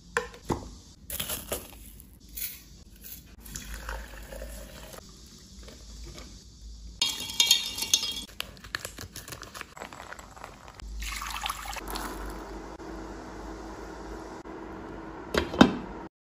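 Glass kitchenware knocking and being set down, then water pouring into a glass measuring jug. Near the end a glass pot lid clatters against the pot.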